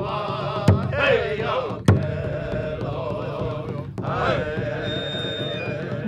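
Singers chanting a Lakota buffalo ceremony song in gliding, wavering voices, with three drum strokes spaced unevenly through it.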